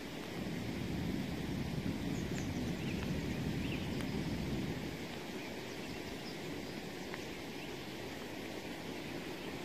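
Outdoor background noise: a low, rumbling haze that swells for the first few seconds and then settles to a steady level, with a few faint high chirps in the first half.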